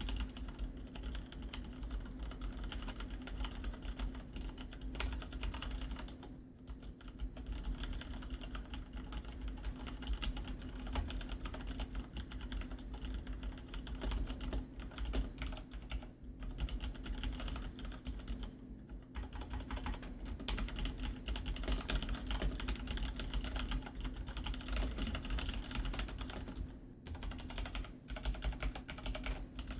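Filco Majestouch 2 Ninja mechanical keyboard with linear Cherry MX Red switches being typed on continuously, a fast run of key clacks broken by a few short pauses.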